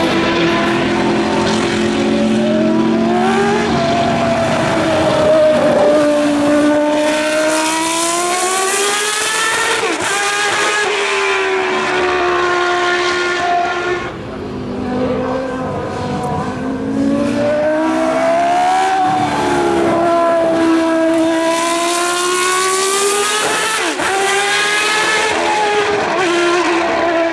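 V10 engine of a 1992 Footwork Arrows FA13 Formula One car at high revs, its pitch rising and falling repeatedly through acceleration, downshifts and passing. It dips briefly in loudness about halfway through, then climbs again.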